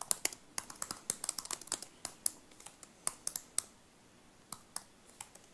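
Typing on a computer keyboard: a quick run of key clicks for about three and a half seconds, then a few scattered keystrokes near the end.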